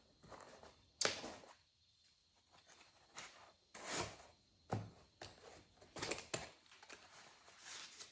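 Faint handling of packaging and parts while a microphone kit is unboxed: scattered rustles and sharp clicks at irregular intervals.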